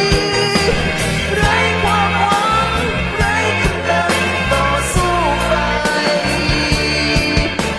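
Pop-rock song: a sliding melody line over a steady bass line and drums.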